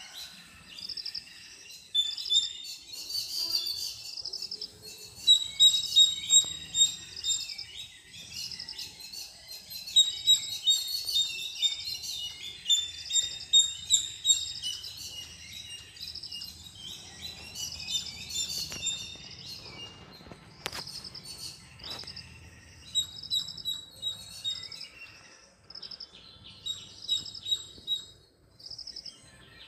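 Birds chirping and twittering, many short high calls in quick succession, thinning a little in the second half. A few faint clicks come about two-thirds of the way through.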